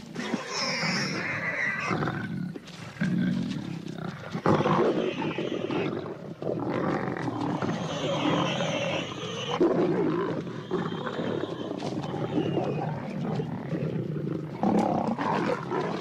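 Several lions snarling and growling over one another without pause, in rough overlapping surges, as the pride squabbles over a small warthog kill dug from its burrow.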